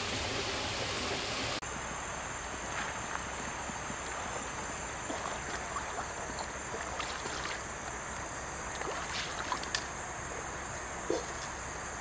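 Shallow stream running over a rocky bed, with scattered small splashes and knocks as someone wades through it and prods with a long stick, one splash a little louder near the end. A thin steady high-pitched tone runs under the water sound. An even, brighter rushing hiss cuts off suddenly about a second and a half in.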